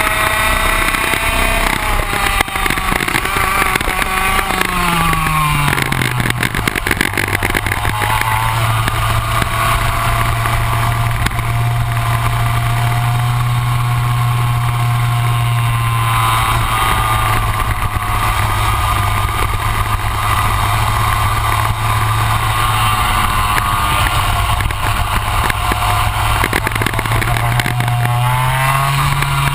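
Rotax Max 125 single-cylinder two-stroke kart engine heard onboard at speed. Its pitch drops sharply about five seconds in, then climbs gradually again and rises once more near the end.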